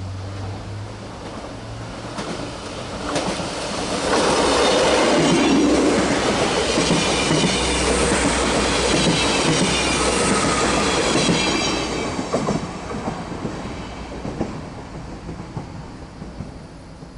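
A train passing close by at speed. Its rumble rises sharply about four seconds in, stays loud with a high hiss from the wheels, and fades away over the last few seconds. A few sharp clacks of wheels over rail joints come through.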